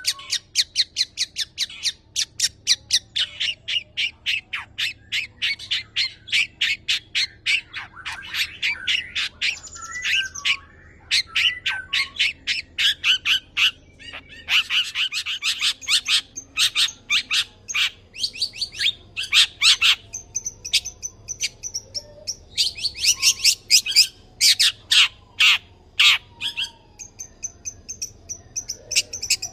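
Long-tailed shrike singing a rapid-fire 'nembak' song with mimicked phrases: dense strings of short, sharp high notes, several a second, with a brief break about fourteen seconds in.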